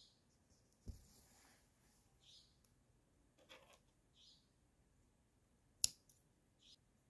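Quiet hand cross-stitching: embroidery floss drawn through 28-count linen in several soft swishes, with a dull knock about a second in and one sharp click near six seconds.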